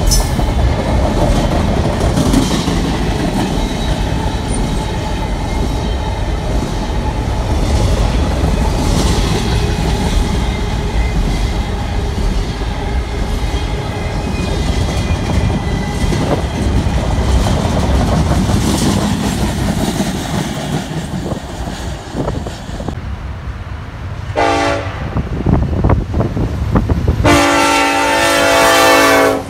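A train running by on the rails, a steady loud rumble with wheel clatter. Near the end a train horn sounds twice, a short blast and then a longer one of about two seconds.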